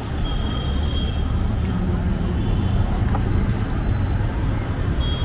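Busy roadside street ambience: a steady traffic rumble with indistinct voices in the background.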